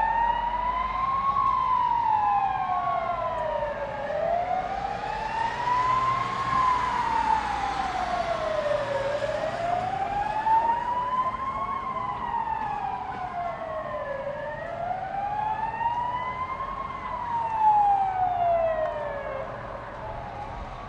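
Emergency vehicle siren sounding a slow wail, rising and falling about every five seconds, with a second, fainter siren overlapping it; the sirens grow quieter near the end.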